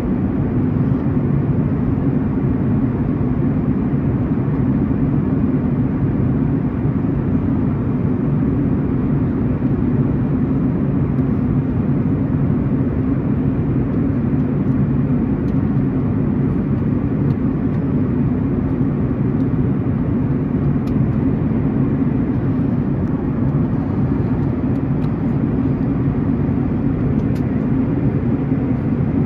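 Steady cabin noise of a Boeing 737-900ER in flight, heard from a window seat beside the engine: a low, even drone from its CFM56-7B turbofans and the airflow, holding level throughout.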